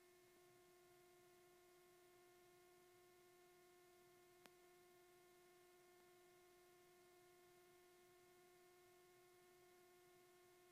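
Near silence on the headset intercom feed: only a faint, steady electrical hum, with one faint click about four and a half seconds in.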